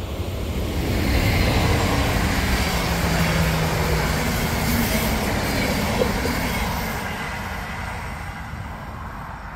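A train passing along electrified track: the noise of wheels on rail builds over the first second, stays loud for several seconds with a low hum under it, and fades away from about seven seconds in.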